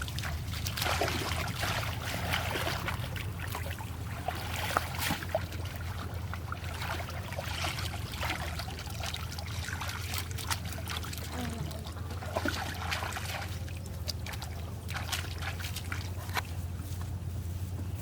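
Water splashing and trickling in shallow lake water, with many scattered small clicks over a steady low hum.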